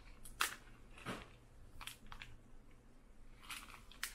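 Zip-top plastic bag of oobleck crinkling in a handful of faint, brief crackles, spaced irregularly, as hands squeeze the air out of it and press along its zip seal.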